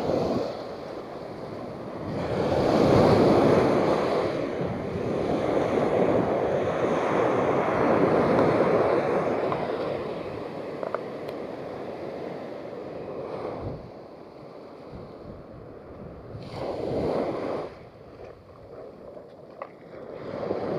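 Small waves breaking and washing up a sandy beach, the surf swelling and fading several times.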